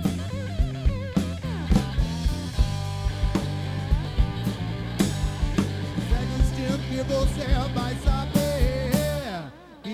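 Rock band playing an instrumental passage: electric guitar lines with bent, wavering notes over a steady bass and drum kit. The music drops away briefly just before the end.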